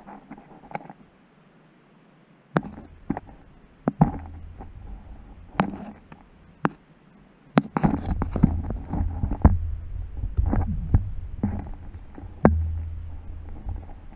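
Camera handling noise in a narrow stone shaft: a dozen or so sharp knocks as the camera bumps against the rock, over low rumbling and scraping. The first couple of seconds are fairly quiet, and the rumble is heaviest over the second half.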